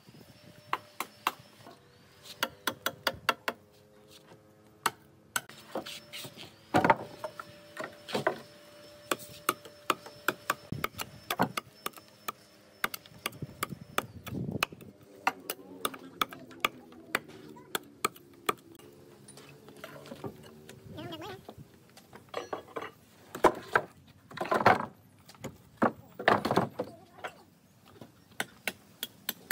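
Irregular knocks, taps and clicks on wood, a few much louder than the rest, over a steady pitched hum that runs for long stretches.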